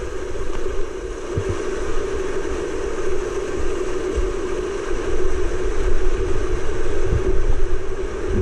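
Whitewater rapids on a creek in high flow, rushing steadily and loudly close to a kayak, with a few low thuds a second or so in and again near the end.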